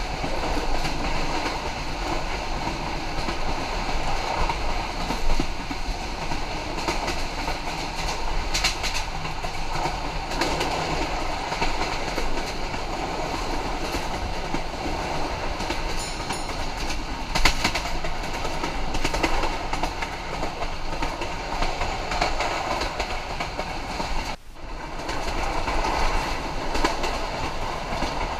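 Sonar Bangla Express passenger train running at speed, a steady rail rumble with repeated clickety-clack of the wheels over rail joints. The noise drops briefly about 24 seconds in, then resumes.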